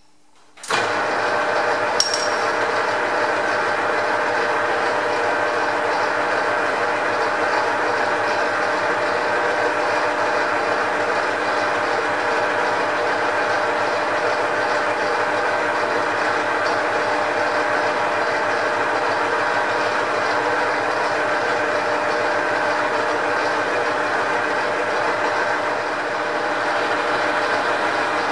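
Metal lathe starting up about a second in, then running steadily with a mechanical whirr of several steady hums from its gear-driven headstock while a tailstock drill cuts into the end of the spinning steel bar. One sharp click about two seconds in.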